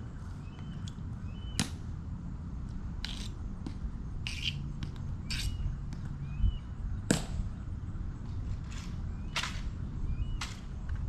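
Sharp clicks of the Tomb Guards' hard-soled, metal-tapped shoes striking the stone plaza in slow, measured steps and heel clicks, roughly one every second or so, with a few short bird chirps between them.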